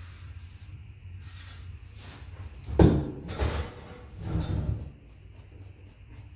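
Workshop handling noise: a long wooden board is put down with a sharp clattering knock about three seconds in, followed by two shorter scraping knocks as boards are handled, over a steady low hum.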